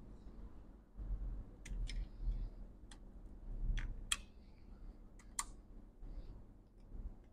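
Scattered sharp little clicks and taps of metal tweezers and flex-cable connectors being unplugged from a MacBook Pro logic board, over a low rumble of handling.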